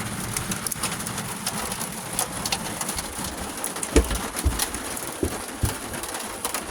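Light hail falling: pellets ticking and clicking irregularly on surfaces over a steady hiss, with a few heavier knocks between about four and six seconds in.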